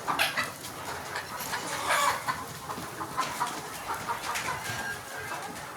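A flock of Sonali chickens clucking, many short calls overlapping, with louder bursts at the start and about two seconds in.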